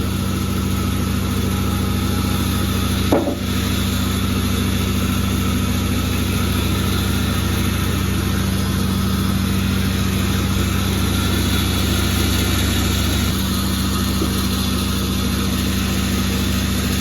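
Sawmill engine running steadily, not under cutting load, with one brief knock about three seconds in.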